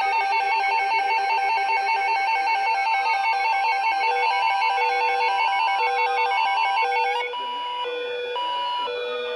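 Several NOAA weather radios sounding their electronic alert alarms at once, overlapping. First comes a fast two-tone warble with falling siren-like sweeps. About seven seconds in it turns slightly quieter and changes to a slower beeping that alternates between a high and a low tone, with a rising sweep.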